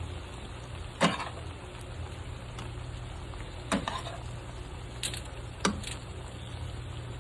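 A spoon knocking against a cooking pot four times, the first knock the loudest, while half-cooked rice is spooned over chicken for biryani. A steady low hum runs underneath.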